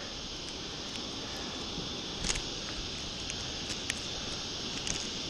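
Steady hiss of sea and wind around an open kayak, with a few light clicks about two, four and five seconds in as the popper lure and the hooked bonito are handled.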